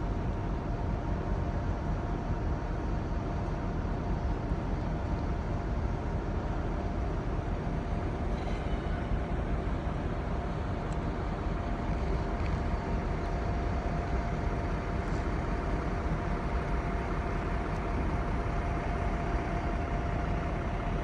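Steady low machinery rumble with a constant mid-pitched hum over it, unchanging throughout.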